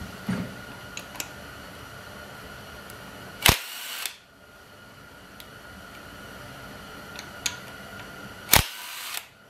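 Cordless impact wrench hammering in two short bursts about five seconds apart as it loosens the two bolts holding the front drive sprocket of a 1973 Honda CL350. The bolts come free easily.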